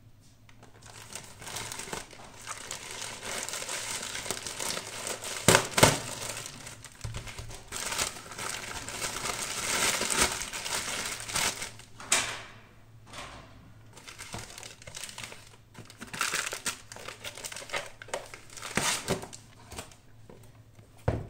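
Smartphone packaging being unwrapped by hand: irregular crinkling and rustling, with sharper snaps and knocks every few seconds, the loudest about six seconds in and near the end.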